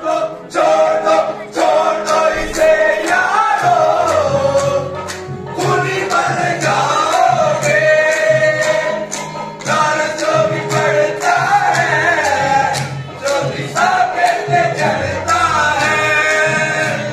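Group of male voices singing a qawwali in chorus, with rhythmic hand clapping.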